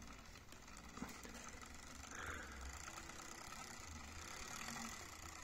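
Dual-motor Surron's added electric motor turning its new transmission and chain drive, running faintly and steadily with a small tick about a second in.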